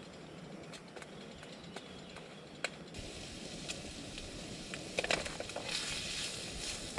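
Bacon frying in a Trangia 25 frying pan: a sizzle starts about three seconds in and grows, with a wooden spatula scraping and knocking in the pan toward the end.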